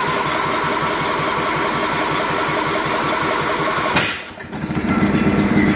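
John Deere LT155's Kohler Command single-cylinder engine running fast on full-throttle choke just after starting. About four seconds in there is a sharp bang, a backfire, and the engine settles to a slower, lower idle.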